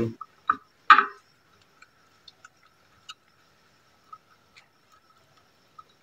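Small clicks and taps of plastic parts and wires being handled as a ceiling-fan capacitor is pushed into place in the fan's top housing. There is a louder knock about a second in, then faint scattered ticks.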